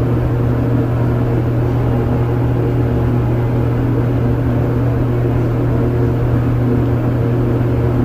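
A loud, steady machine hum with a strong low drone, unchanging throughout.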